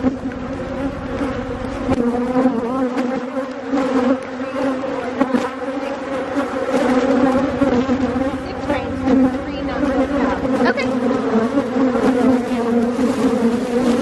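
Honeybees from an opened hive buzzing loudly in a dense, wavering hum. They are cranky, agitated by a nectar dearth while the hive is worked without smoke.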